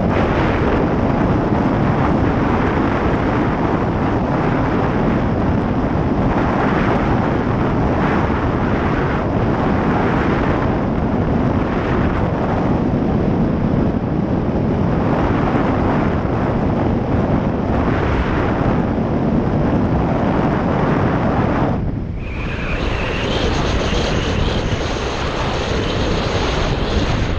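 Wind buffeting the built-in microphone of a GoPro Hero 4 Session mounted on a motorcycle helmet at road speed: a dense, loud rush of wind noise. About three-quarters of the way through it drops abruptly to a thinner rush with a faint high whine.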